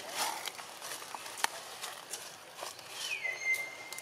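Light rustles and scattered taps, with one sharp tick about a second and a half in. Near the end a thin, whistle-like call drops in pitch and then holds steady for most of a second.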